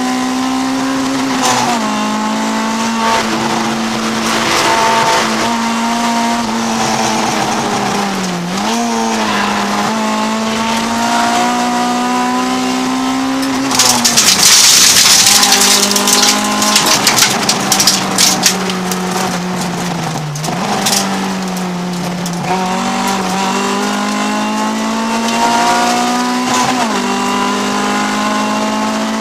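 Honda CRX's B20 VTEC four-cylinder engine at racing revs, heard from inside the cabin. Its pitch climbs steadily and drops sharply several times at the gear changes and braking. About halfway through, a few seconds of loud gritty rushing and clatter from dirt and gravel as the car runs through a cloud of dust at the track edge.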